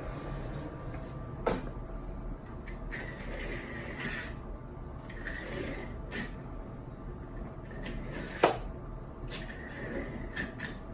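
A hand tool scraping and scoring along a window frame to cut away old caulking, in short repeated strokes, with a few sharp knocks. The loudest knock comes about two thirds of the way in.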